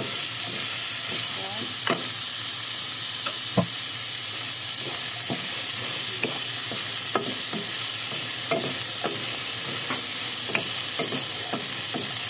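Minced pork, diced carrots and green beans sizzling in oil in a nonstick wok, with a steady hiss. A wooden spatula scrapes and knocks against the pan at irregular moments as the food is stir-fried.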